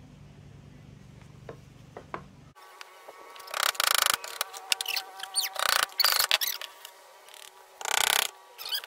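Claw hammers tapping small nails into thin plywood birdhouse pieces: three loud bursts of quick blows, the first about three and a half seconds in, with a ringing tone carrying between them.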